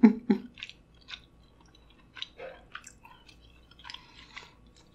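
Close-miked chewing with the mouth shut: scattered soft mouth clicks and small smacks, loudest in the first half second.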